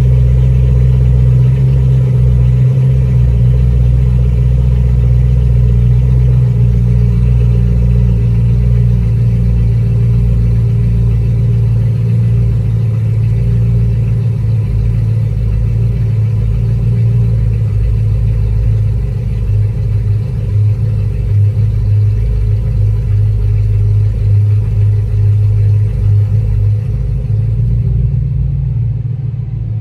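BMW E92 M3's 4.0-litre V8 with an iPE F1 valved exhaust idling steadily while warming up after a cold start, heard from inside the cabin. It gets a little quieter near the end.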